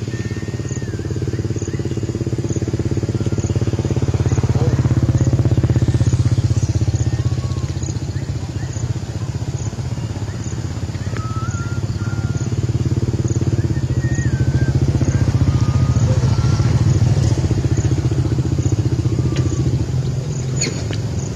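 An engine running steadily with a low rumble that swells and eases twice, with faint short high chirps over it.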